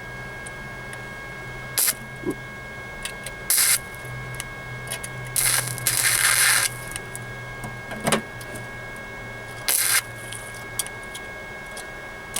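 Flux-core wire-feed welder laying short spot welds on a sheet-steel floor-pan patch: four brief bursts of crackling arc hiss, the third lasting over a second, with a steady low hum underneath.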